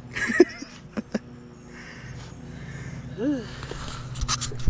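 Scraping, rustling and clicks of hands handling the camera, loudest in a burst near the end, over a low steady hum.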